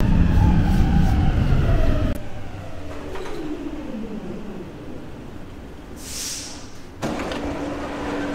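Metro train braking into a station: rumble and a motor whine that falls steadily in pitch as the train slows. A short hiss of air about six seconds in, then a clunk a second later as the train stops and its doors open, leaving a steady hum.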